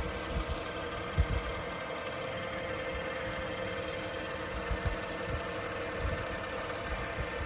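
Small wood lathe motor running at a steady speed with a constant hum, while the spinning crochet hook is wiped off after polishing. A few soft low bumps, the loudest about a second in.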